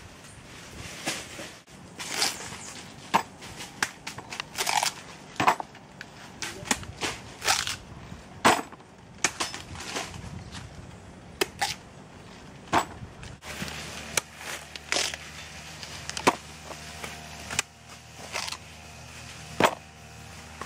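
Machete blows chopping cocoa pods open: a run of sharp, irregular chops, about one or two a second.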